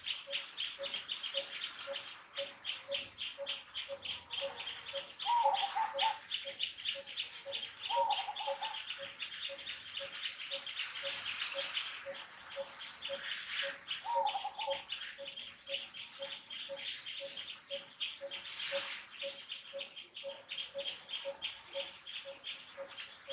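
Woodland birds and insects: a steady, rapid high-pitched pulsing at about four beats a second over a low note repeated about twice a second, with three short falling calls standing out.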